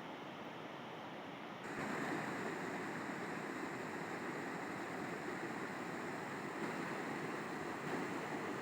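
River water rushing steadily. A little under two seconds in it becomes louder and brighter, with more hiss.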